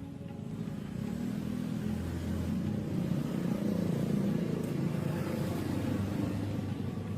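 Repaired air compressor's electric motor and pump running steadily, growing louder over the first few seconds.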